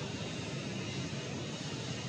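Jet engine noise from an Airbus A320: a steady, even rumble that holds without change.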